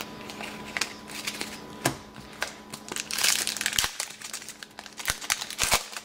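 Foil trading-card pack wrapper being torn open and crinkled by hand, after a few light clicks of cards being handled; the crinkling is loudest about three seconds in and comes again near the end.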